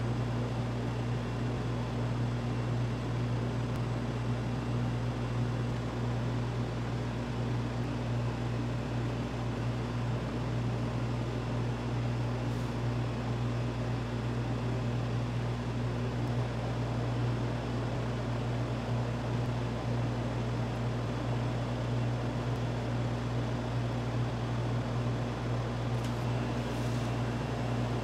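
A machine's steady low electric hum over a light hiss, holding one even level and pitch throughout.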